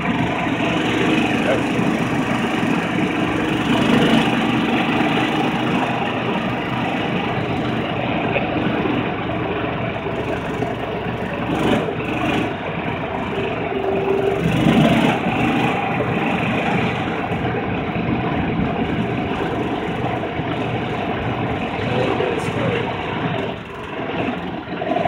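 Kawasaki Mule utility vehicle driving along, its engine running with a steady note that shifts a little up and down in pitch.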